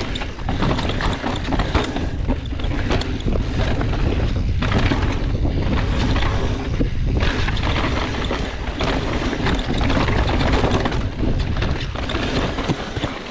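Mountain bike (Specialized Enduro Comp) descending a dirt trail at speed: steady tyre rumble and wind noise on the GoPro microphone, with frequent clattering knocks from the bike over bumps.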